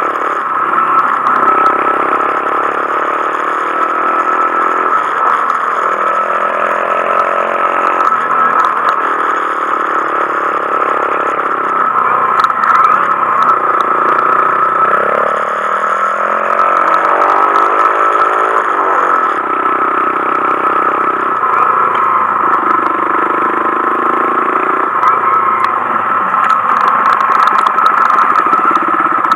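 Honda Monkey 125's single-cylinder engine running under way, its pitch rising and falling with the throttle and gear changes, with one clear rising rev about two-thirds of the way through.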